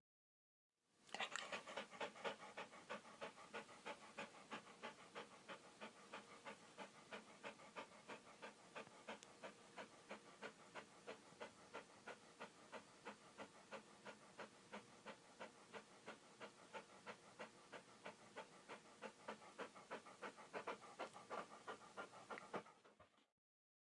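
Dog panting rapidly and evenly, about four breaths a second, starting after a brief silence and fading out near the end.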